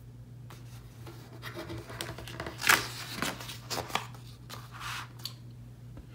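The paper pages of a large picture book are handled and turned by hand, giving a run of papery rustles and scrapes for about five seconds, over a low steady hum.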